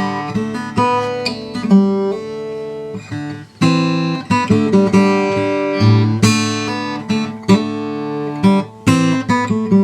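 OM-size steel-string acoustic guitar with Brazilian rosewood back and sides and a torrefied Adirondack spruce top, played in an improvised passage of single notes and chords, each attack left to ring.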